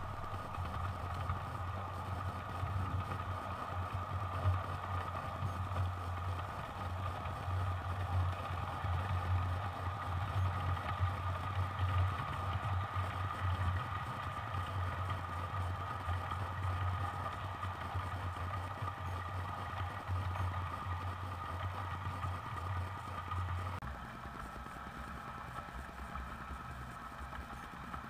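Milwaukee Road Hiawatha model passenger train running on the layout track: a steady low hum with a higher whine above it. The low hum stops abruptly about 24 seconds in.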